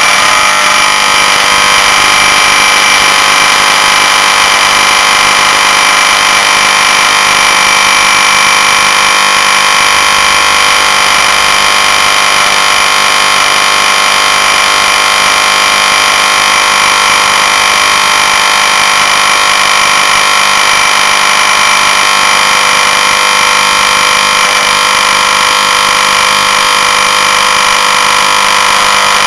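Oil-drained hermetic refrigerant compressor motor under power with its Clixon overload and thermal switch overridden, giving a loud, steady electrical hum and buzz that holds unchanged throughout. It is being run deliberately to burn out its windings.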